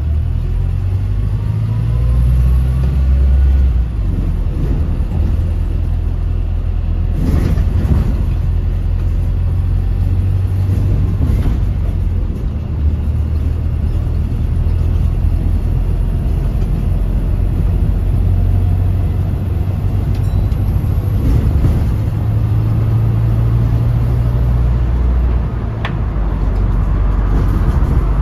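Volvo B5LH hybrid double-decker bus engine pulling hard under full throttle, heard from on board. Its low note climbs and drops as the bus speeds up and changes gear, over steady road rumble, with a few knocks from bumps or rattles.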